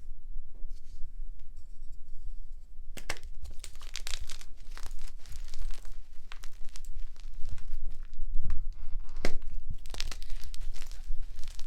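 Blocks of gym chalk (magnesium carbonate) being crushed and crumbled, a dense run of dry crunching and crackling that starts about three seconds in.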